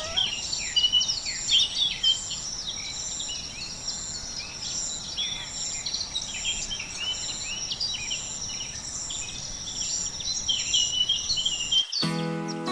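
Outdoor bird chorus: many birds chirping and calling, with one high chirp repeating evenly, a little more than once a second. Instrumental music cuts in near the end.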